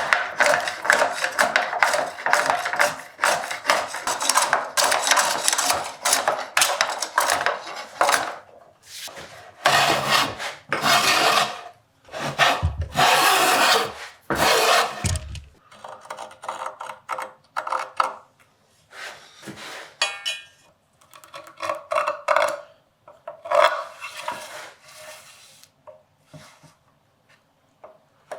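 Hand work on wooden and metal vise parts: a continuous rasping scrape for about the first eight seconds, then shorter scraping strokes and handling noises, with a quick run of clicks about twenty seconds in.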